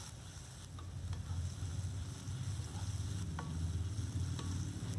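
Chopped onions with ginger-garlic paste frying in oil in a nonstick pan while being stirred with a spatula: a low scraping, sizzling rustle that grows louder after about a second, with a few light ticks of the spatula against the pan.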